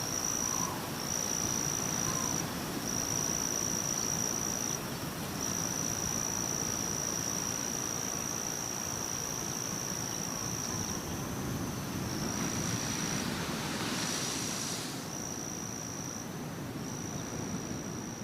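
An insect trilling on one steady high pitch, holding for seconds at a time with short breaks, over a low steady rushing background. A brief louder hiss comes and goes about two-thirds of the way through.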